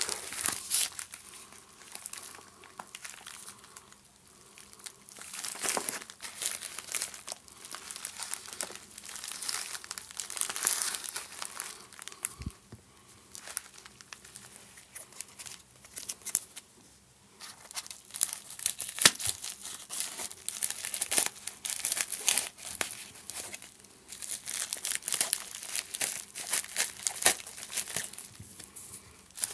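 Smartphone packaging being unwrapped and handled by hand: crinkling in irregular spells with short pauses between them.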